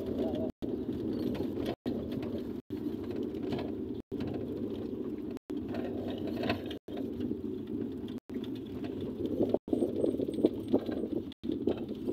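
Car driving, its road and engine noise heard from inside the cabin as a steady rumble. Short knocks and rattles join in near the end as it runs onto rough road. The sound cuts out briefly about once a second.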